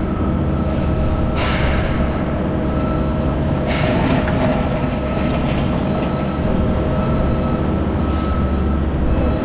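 Cat mini excavator's diesel engine running steadily under load, with a steady high hydraulic whine, as its bucket works through crushed rock. Two brief hissing scrapes come about one and a half and four seconds in.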